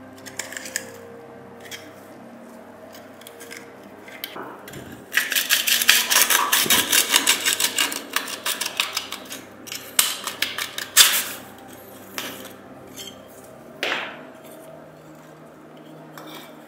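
Hand tools (a flat blade and pliers) scraping and grating on the rusted metal burner of an old tin oil lamp as its seized parts are worked apart. A fast spell of scraping and rattling starts about five seconds in. A few sharp metal clicks and a knock follow later.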